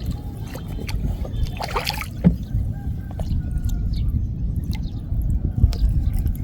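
Water dripping and splashing as a wet gill net is hauled by hand out of a flooded rice field, with many small drips and a louder splash about two seconds in, over a steady low rumble.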